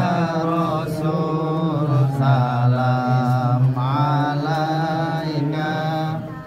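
Islamic devotional chanting (sholawat) by a group of voices, long held notes that slide from pitch to pitch, breaking off briefly near the end.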